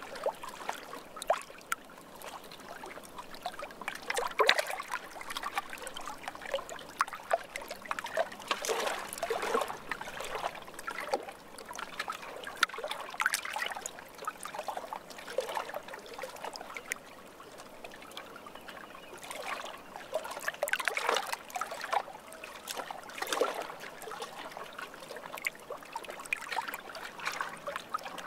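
Water trickling and lapping in small, uneven splashes that gather into stronger bursts every few seconds.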